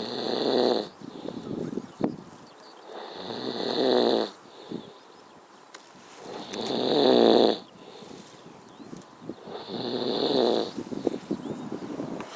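A man snoring in his sleep: four loud, rattling snores about three seconds apart, each swelling in loudness before breaking off.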